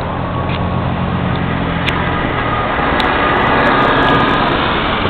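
City transit bus's diesel engine running under power as the bus tries to pull out of a snow drift. A steady low engine note gives way, about two and a half seconds in, to a louder broad rushing noise.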